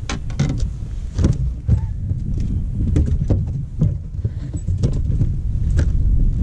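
Wind buffeting the microphone as a steady low rumble, with irregular sharp knocks and clicks from handling on a boat's front deck. The strongest knocks come about a second and a half in.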